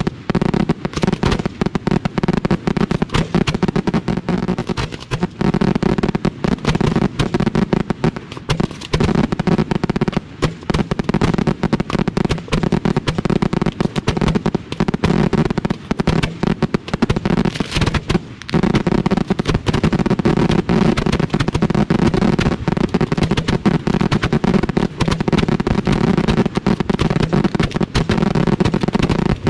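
Fireworks closing barrage heard right at the firing racks: shells launching from ground mortar tubes in a dense, unbroken volley of loud bangs, many a second, with only brief lulls.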